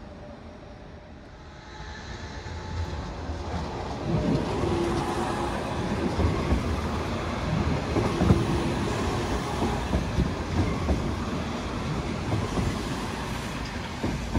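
Appenzeller Bahnen electric tram-train rolling slowly past at close range over station track and points. It grows louder about two to four seconds in, then its wheels knock and clatter over rail joints and switches, with a short steady whine twice.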